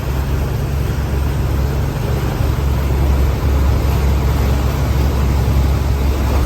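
Fishing boat's engine running steadily underway: a low drone under an even hiss of wind and water.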